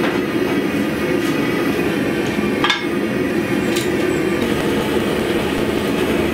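Two-burner gas forge running with a steady roar from its burners. A single metallic clank cuts through about two and a half seconds in.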